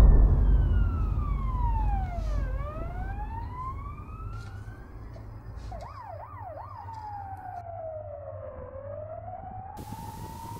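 A sudden deep boom at the start, its low rumble fading over several seconds, under emergency-vehicle sirens wailing in slow falling and rising sweeps, with a brief quicker yelp about six seconds in.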